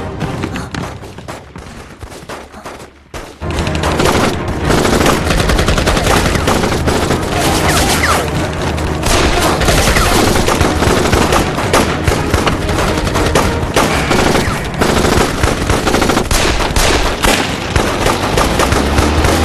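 Rapid film-soundtrack gunfire: a few scattered shots, then from about three seconds in a dense, continuous barrage of shots too close together to count.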